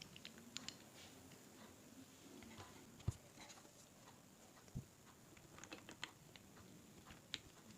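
Faint clicks and taps of small camera accessory parts being handled and fitted together onto a GoPro rig, with two louder knocks about three and five seconds in.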